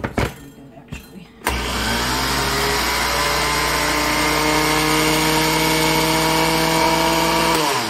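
A few clicks of a glass blender jar being seated on its base, then the countertop blender's motor starts about a second and a half in, rising briefly to speed, and runs steadily grinding rolled oats into oat flour. It winds down, falling in pitch, as it is switched off near the end.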